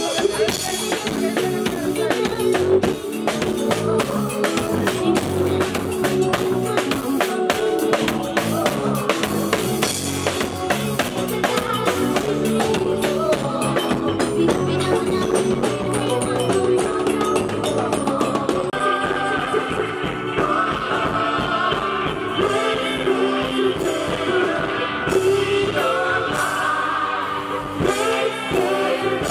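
Live band playing through a stage sound system during a sound check: a drum kit keeps a busy beat under singing. The singing grows stronger about two-thirds of the way in.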